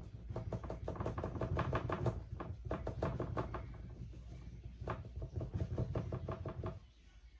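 Paintbrush dabbing against a stretched canvas in quick repeated taps, each tap thumping the canvas; the tapping stops near the end.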